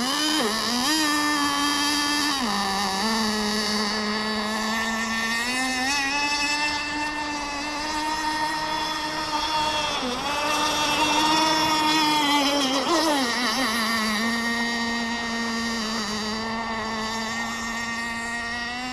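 Kyosho GT32 two-stroke nitro marine engine in an RC boat running at part throttle on the water. Its high buzzing note steps up and down several times as the throttle is eased and opened, with a clear drop about 13 seconds in.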